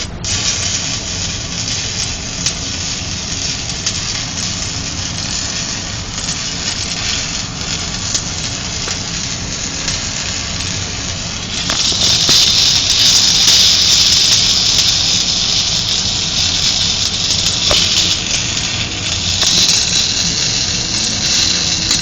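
Stick (SMAW) welding arc crackling and hissing steadily while running a vertical bead. The crackle gets louder and sharper about halfway through.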